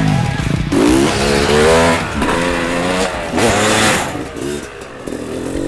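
Dirt bike engine revving up and down as it is ridden, rising and falling in pitch several times, with repeated bursts of throttle.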